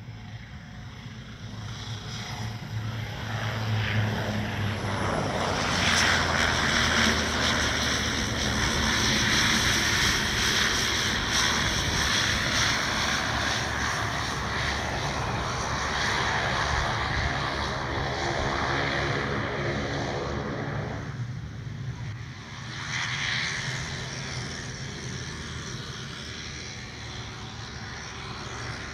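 Cessna 208B Grand Caravan's single turboprop engine and propeller running as the aircraft lands, growing louder over the first few seconds and falling in pitch as it passes. The sound drops about three quarters of the way through, surges briefly, then carries on at a lower level.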